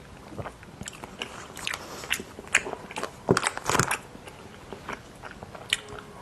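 A person biting into and chewing crunchy sweets, with a run of sharp crunches and wet mouth clicks; the loudest burst of crunching comes about three to four seconds in.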